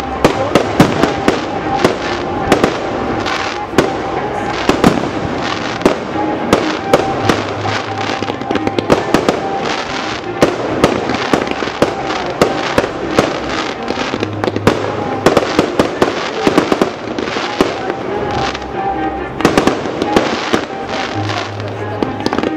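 Fireworks display: rapid, continuous shell bursts and crackling, several sharp bangs a second without a break.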